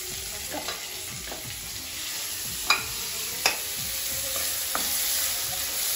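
Chopped green capsicum, onion and carrot sizzling in hot oil in a steel wok while being stirred with a wooden spatula. The spatula clacks sharply twice around the middle.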